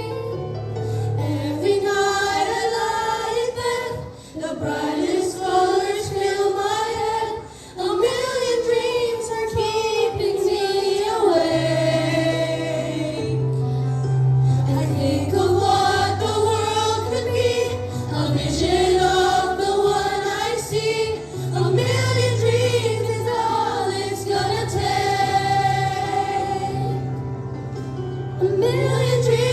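A group of children singing together as a choir over an instrumental accompaniment with a steady bass line.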